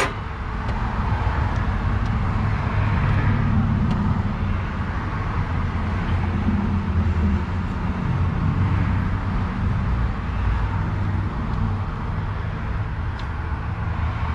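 Steady low rumble of a motor vehicle engine running nearby, with no change in pitch.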